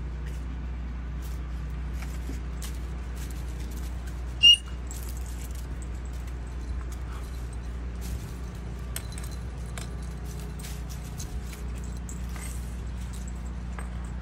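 Puppies moving about on a raised mesh cot: light clicks and a jingling collar tag over a steady low background rumble, with one brief high-pitched squeak about four and a half seconds in.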